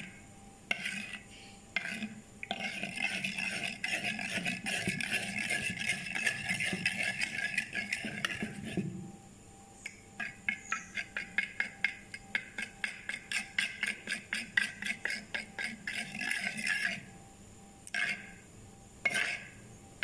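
Metal spoon mixing egg-and-milk batter in a bowl: a steady swishing scrape for several seconds, then rapid clinks of the spoon against the bowl at about three or four a second, and two separate taps near the end.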